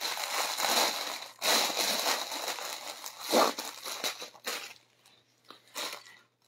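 Clear plastic packaging bag crinkling and crackling as hands open it and pull out a folded dupatta. It is loudest over the first three seconds or so, then thins to a few softer crackles that die away near the end.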